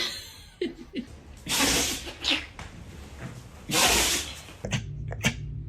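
A puppy sneezing twice, about two seconds apart, each sneeze a short burst of breath.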